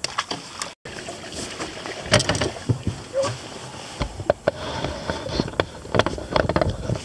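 Irregular knocks and clicks of gear being handled in a fishing boat, with a low wind rumble on the microphone from about four seconds in.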